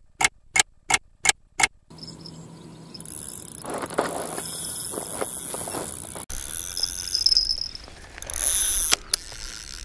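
Clock-ticking sound effect: six sharp ticks, about three a second, stopping about two seconds in. Then fainter background sounds.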